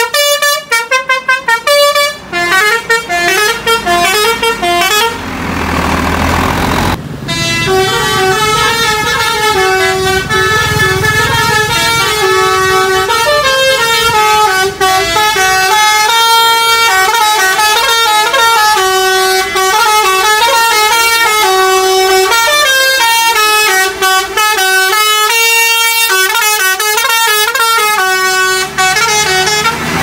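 Basuri 'telolet' horns on Indonesian tour buses, multi-trumpet air horns playing melodies. Quick staccato toots and short stepping phrases come first, a bus engine runs alone for a couple of seconds around five to seven seconds in, then a long continuous horn tune follows.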